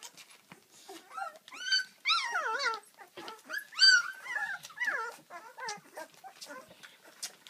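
Bouvier des Flandres puppies whimpering and crying in a run of high-pitched cries that rise and fall in pitch, the loudest about two and four seconds in.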